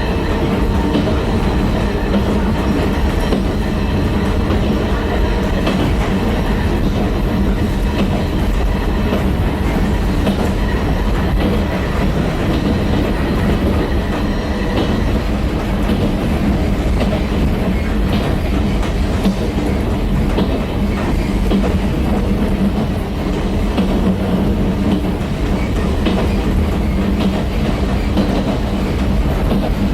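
JNR 70-series electric multiple unit car with nose-suspended (tsurikake) MT40A traction motors, heard from inside the car while running along the line. It keeps up a steady rumble and hum, with the clatter of wheels over rail joints.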